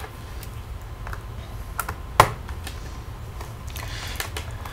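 Scattered light clicks and taps of hands and a screwdriver handling a laptop's plastic underside, with one sharper click about two seconds in.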